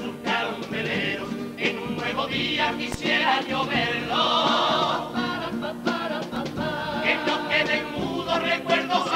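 A carnival comparsa's instrumental passage: strummed Spanish guitars under a melody played in unison on the group's kazoos (carnival pitos), with no lyrics sung.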